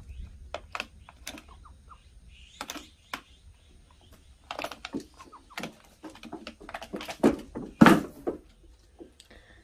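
Chickens pecking grain at a wire-framed feeder on a wooden board: irregular sharp taps and knocks of beaks on the feeder and board. Near the end comes a louder thump.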